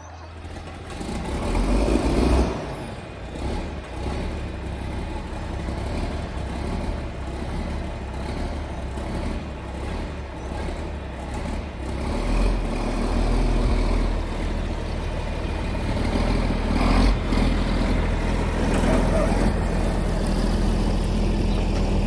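John Deere tractor engine running, swelling up in the first couple of seconds, then running steadily. It grows louder and deeper from about twelve seconds in.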